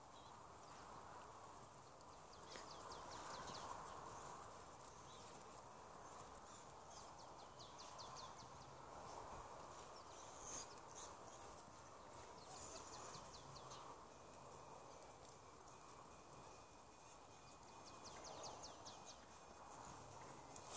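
Near silence: faint outdoor background with a few thin, high bird chirps and trills, and a single short click about halfway through.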